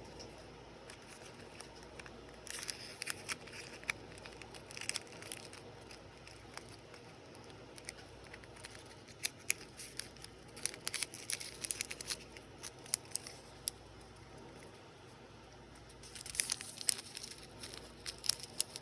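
Small plastic packaging being handled and opened: crinkling, crackling and tearing in several short bursts, with quieter pauses between them.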